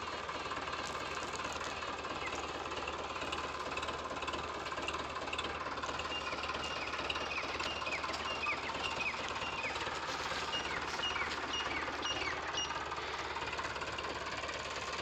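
Powertrac Euro 55 tractor's diesel engine running steadily with a knocking clatter as it hauls a fully loaded sugarcane trolley. Short high chirps repeat over the engine in the middle stretch.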